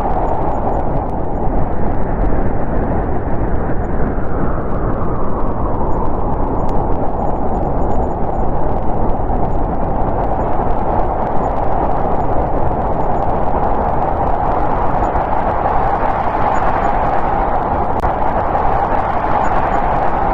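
Winter storm wind blowing steadily, a dense rush with a hollow whistling tone that slowly swells and eases as gusts come and go.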